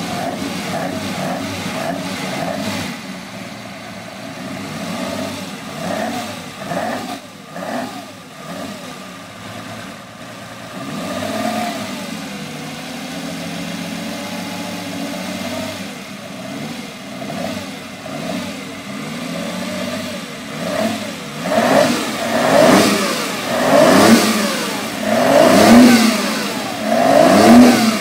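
Racing car engine revving and accelerating, its pitch rising and falling with each run up through the revs. The revs grow louder and more frequent in the last few seconds.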